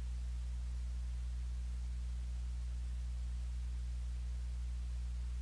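Steady low hum with a few faint higher overtones, unchanging throughout; no speech.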